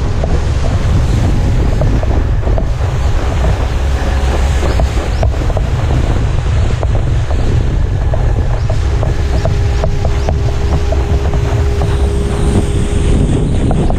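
Wind buffeting an action camera's microphone at towing speed over the water, over a steady rush of water and wake spray.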